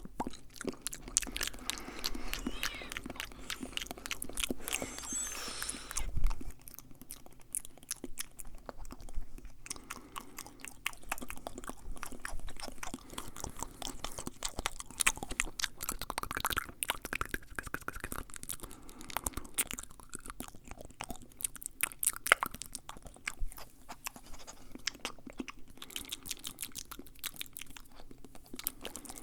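Fast, close-miked ASMR mouth sounds: rapid wet clicks, smacks and nibbling noises packed many to the second, with one louder thump about six seconds in.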